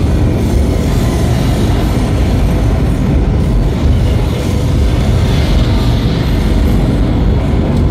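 Loud, steady deep rumble of a wartime air-raid soundscape played over outdoor loudspeakers, accompanying projected images of the Blitz with burning buildings and an explosion.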